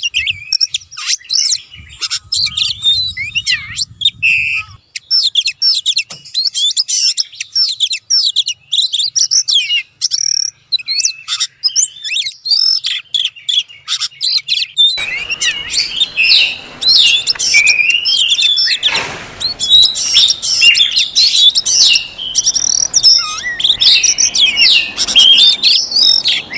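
Oriental magpie-robin singing: a fast, continuous stream of varied whistles, trills and chirps. A steady hiss comes in under the song about halfway through.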